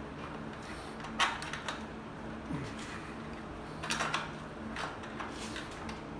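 Fork tube cap being threaded by hand into the top of a motorcycle fork tube. A few light metallic clicks and scrapes, sharpest about a second in and again around four seconds, over a steady low hum.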